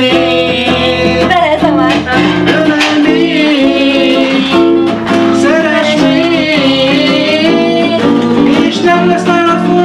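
An archtop guitar played in chords, backing a voice singing a song with a wavering vibrato.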